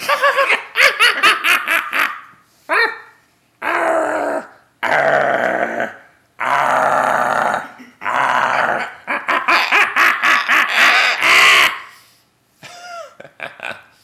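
A man laughing in quick bursts, then a series of long, harsh, guttural vocal sounds of about a second each, with short gaps between them.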